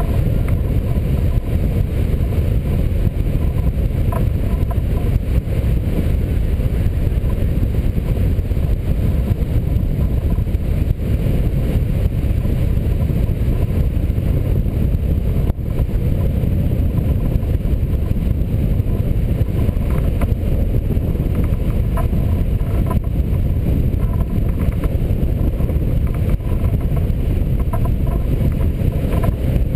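Wind rushing over the microphone of a camera mounted on a hang glider in flight: a steady low rumble of airflow that does not let up.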